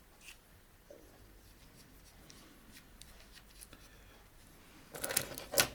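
Small flat screwdriver scraping and clicking against a Casio watch case while prying at the strap: faint small clicks at first, then a louder scratchy burst of scraping near the end.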